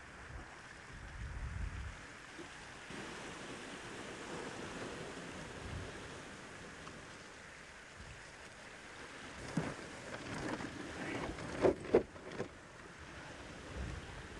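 Steady sea surf washing on rocks, with wind on the microphone. In the last third come a few short knocks and rustles, the loudest two close together.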